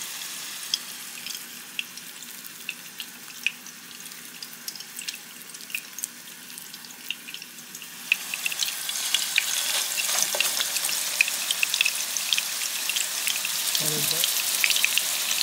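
Food frying in a pan, crackling and sizzling with sharp pops. It gets louder and denser about eight seconds in.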